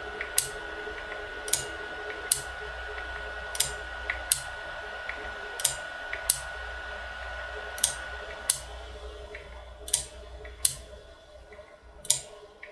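ШИ-11 rotary stepping switch stepping under single current pulses, its rotor brush moving one contact lamella at a time. Each step is a pair of sharp clicks about three quarters of a second apart, the armature snapping to the electromagnet core to drive the pawl over a ratchet tooth and then springing back. The steps come about every two seconds.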